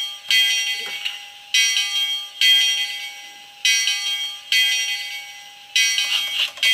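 Steam locomotive bell sound from an On30 0-4-2 Porter model's DCC sound decoder, played through its small speaker. It rings in pairs of strikes about every two seconds, and each strike fades before the next. Clanking joins in near the end.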